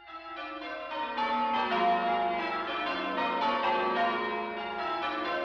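A peal of church bells ringing, many bells struck one after another in quick succession, fading in over the first second.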